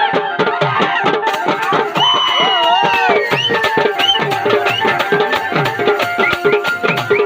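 Baja band music driven by fast dholak drumming, with a held melody line that slides in pitch over the drum strokes.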